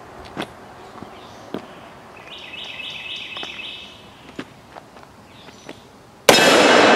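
A 4-inch Smith & Wesson .500 S&W Magnum revolver with a ported barrel fired once, near the end: a sudden loud report whose sound lingers for a couple of seconds. Before it, a bird sings a short run of stepped chirps, with a few light clicks.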